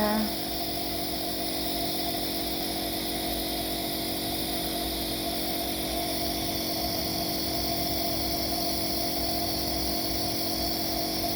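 A nebulizer's compressor running steadily: an even mechanical hum over a high hiss, delivering a mist inhalation treatment.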